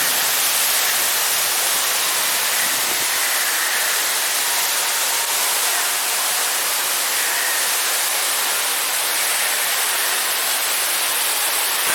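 Steady rushing hiss of falling water, even and unbroken throughout.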